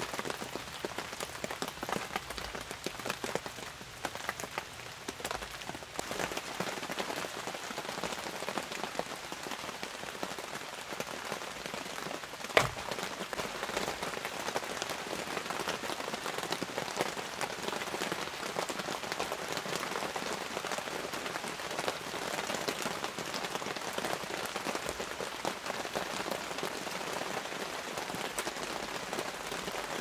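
Steady rain falling, a dense patter of drops. One sharp knock stands out a little before the middle.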